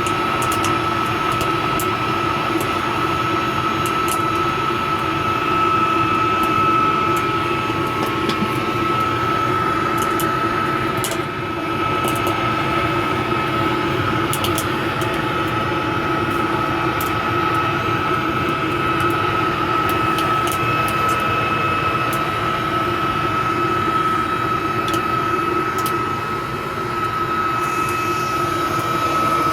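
Homemade metal-melting furnace running: a steady roar with a steady high whine through it, and a few faint ticks.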